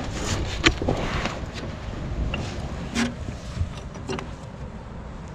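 A low, uneven rumble with a few sharp clicks and knocks scattered through it, the loudest about a second in and about three seconds in.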